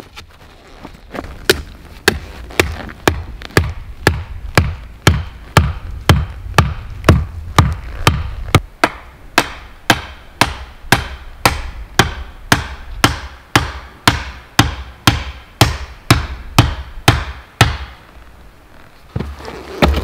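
A wooden stake being hammered into the ground with steady, even blows, about two a second, some thirty strikes in all; the blows stop a couple of seconds before the end.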